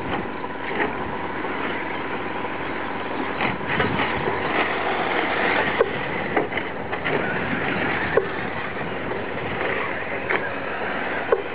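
Brushless electric RC short-course trucks racing on a dirt track, their motors and tyres making a steady mechanical noise, with several short, sharp knocks scattered through it.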